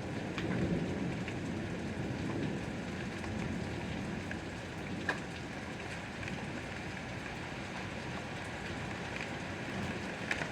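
Steady rain falling on a surface, a continuous even patter with scattered sharper drips, one of them louder about five seconds in.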